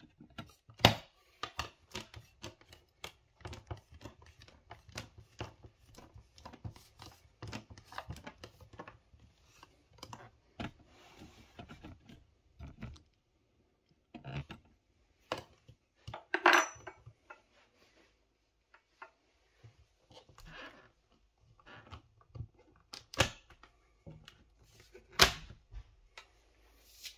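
Metal putty knife levering a plastic uPVC glazing bead off a double-glazed window frame: a dense run of scraping and clicking, then a few separate sharp clicks and snaps as the bead comes loose.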